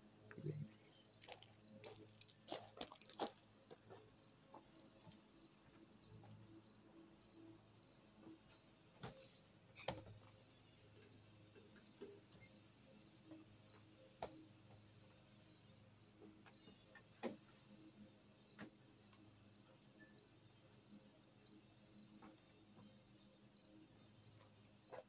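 Steady high-pitched insect chorus, with a second insect chirping about twice a second. A few faint knocks and clunks, the loudest about a second in, as someone climbs onto and off a compact tractor that is not running.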